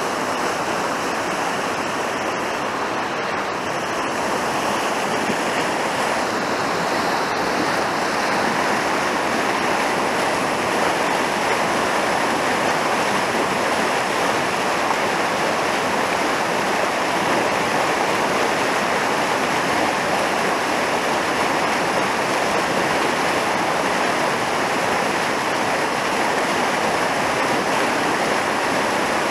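Fast mountain river rushing over rocks in whitewater rapids, a steady, even noise.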